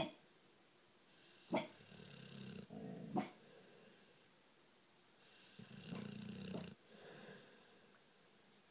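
Blue-nose pit bull snoring in its sleep: two long snoring breaths a few seconds apart, with short sharp snorts at the start, about one and a half seconds in and about three seconds in.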